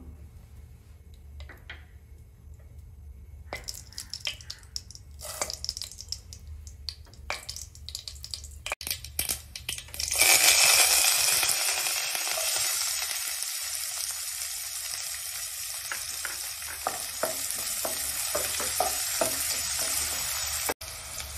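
Chopped onions hit hot oil in a kadai and start sizzling loudly about ten seconds in. They keep frying while being stirred, with knocks from the stirring spoon. Before that there are only scattered faint clicks and knocks as the oil heats.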